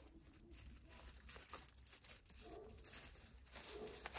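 Faint crinkling and rustling of a thin plastic bag being handled, in short irregular rustles.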